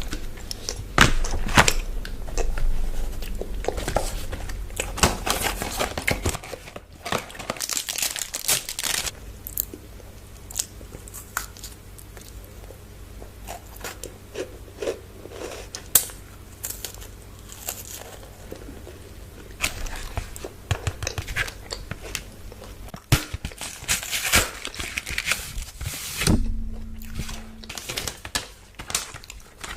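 Chocolate bar wrappers crinkling and tearing close to the microphone, with crisp bites and chewing between the rustles.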